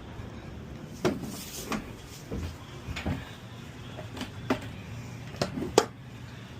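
Scattered sharp knocks and clunks of tire-changing work as the new tire and tools are handled, about seven over several seconds, the loudest near the end.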